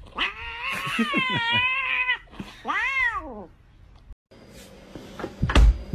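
Domestic cat meowing twice: a long wavering meow, then a shorter one that rises and falls. After a brief gap, a loud thump near the end.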